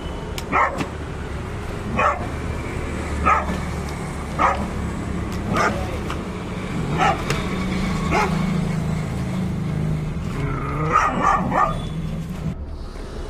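A dog barking in single barks about once a second, then a quick run of barks near the end, over a steady low engine hum.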